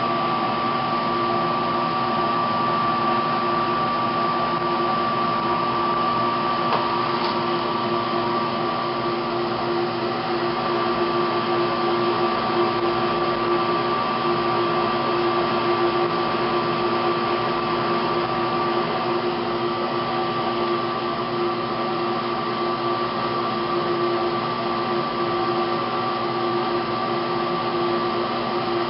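Steady running noise of an electric fan or blower, a constant rushing hum with a steady whine on top.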